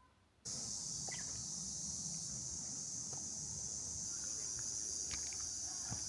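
Steady high-pitched insect chorus, starting abruptly about half a second in, with a few faint short chirps over it.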